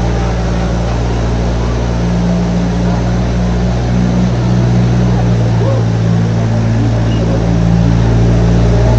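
Zoo tram's motor running steadily as it tows open carriages slowly along a paved path, a steady low drone heard from on board.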